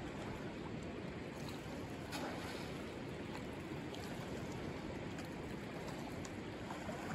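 Steady rush of shallow river current running over rocks.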